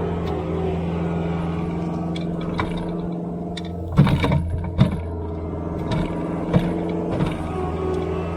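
Skid steer loader engine running steadily, with several sharp clanks and knocks, the loudest about four seconds in.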